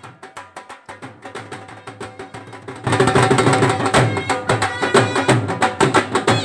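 Background music with a fast, steady percussion beat, becoming much louder about three seconds in.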